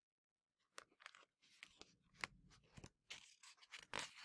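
Faint rustling and light clicks of a hardcover picture book's paper page being handled and turned. The rustle grows louder near the end.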